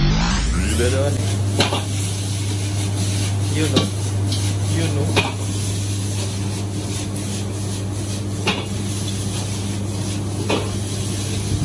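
Metal spatula and ladle scraping and striking a wok as noodles are stir-fried, with about five sharp metal clacks spread through. Underneath runs the steady rush of the gas wok burner with a low hum.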